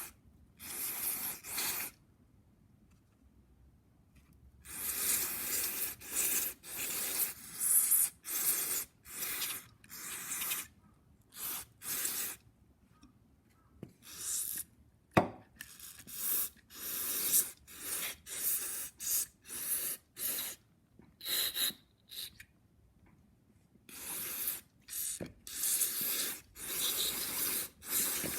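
A string of short hissing spray bursts, some a fraction of a second and some a couple of seconds long, as a brushcutter carburetor is cleaned. One sharp click about fifteen seconds in.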